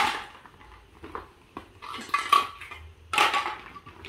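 Intermittent clattering and clinking of small hard objects being handled: a few separate knocks, a busier rattle around the middle, and the loudest clatter a little after three seconds in.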